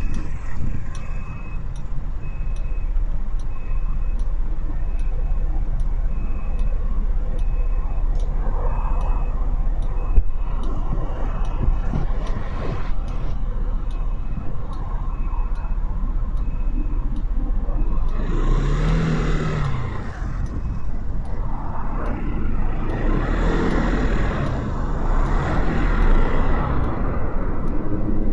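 Motorcycle engine idling steadily while stopped in traffic, with a faint beep repeating at an even pace through the first half. In the last third, passing vehicles swell up and die away, one with a rising then falling engine tone.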